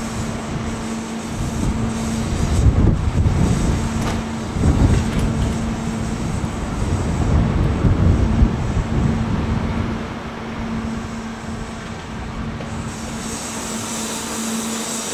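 A Kintetsu 30000 series Vista EX electric train stands at the platform with its onboard equipment humming steadily. Low rumbling swells and fades during the first two-thirds, and a steady hiss comes in near the end.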